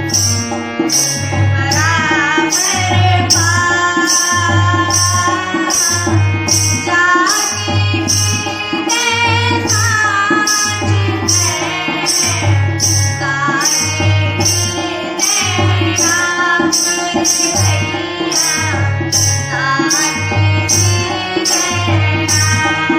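Indian devotional music: a steady tabla beat with low drum strokes about once a second, under a melody that bends and wavers in pitch.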